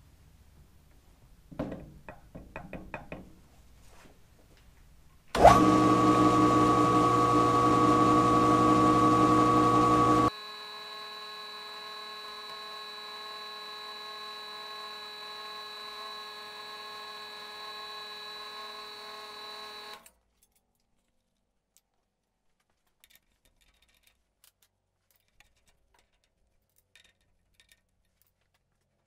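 Benchtop milling machine running a small drill bit into the threaded end of a steel grade 8 bolt. A few light knocks come first. The motor then starts suddenly with a steady whine of several tones, drops much quieter with a changed pitch about halfway through, and cuts off abruptly, leaving near silence with faint ticks.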